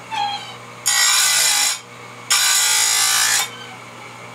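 Electric chain grinder's spinning wheel grinding a saw-chain cutter in two separate passes of about a second each, half a second apart, lowered slowly onto the tooth to keep it from overheating.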